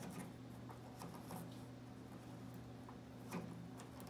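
Channel selector knob of a 1958 Zenith tube television being turned by hand, its detents giving a few faint, irregularly spaced clicks, the clearest a little over three seconds in.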